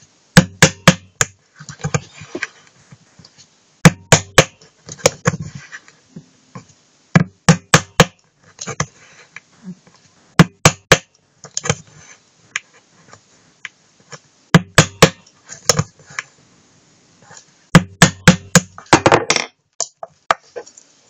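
Small hammer tapping a nail through the thin aluminium wall of a soda-can bottom, punching the ring of jet holes in a homemade alcohol stove. The taps come in quick bursts of three to five, with pauses of a few seconds between bursts.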